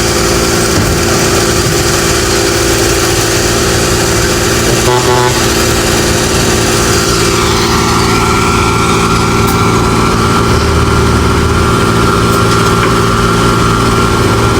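A heavy engine running steadily at an even speed, with a hiss above it that falls away about halfway through.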